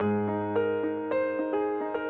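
Background music led by a soft electric piano, with new notes struck about every half second over a held low note.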